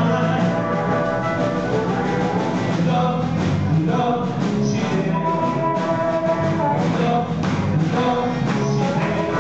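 Live blues band playing a shuffle with electric guitar, bass and drums, a man singing into the microphone and a harmonica wailing along.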